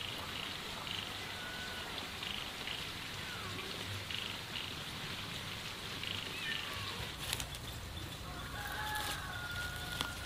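Dry straw and corn-stalk nesting material rustling and crackling as a hand rummages through a nest for eggs, with a couple of sharp clicks about seven and ten seconds in. Faint high bird calls come and go behind it.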